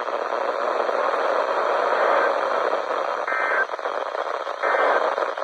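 Steady static hiss from a NOAA Weather Radio broadcast, with two short warbling digital data bursts about a second and a half apart in the second half: SAME end-of-message code, the signal that the tornado warning broadcast has ended.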